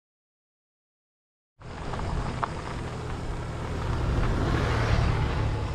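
Dead silence for about the first second and a half, then steady low-pitched road noise while riding, growing a little louder about four seconds in.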